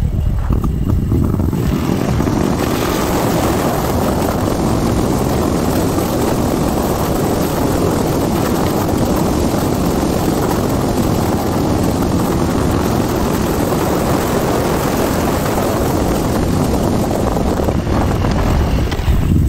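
Harley-Davidson Milwaukee-Eight 114 V-twin with an S&S 475 cam, running steadily at road speed, buried in a heavy, steady rush of wind over the microphone.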